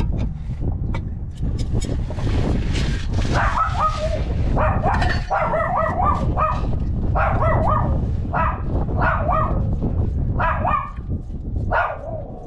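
A dog barking repeatedly in short runs of barks, over a low steady rumble and scattered clicks, with a brief hiss about two seconds in.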